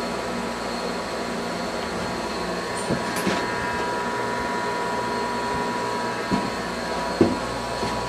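TLI air-to-air heat pump running at full output, its fans and compressor making a steady whir with a thin high tone running through it. A few short knocks come about three seconds in and again near the end.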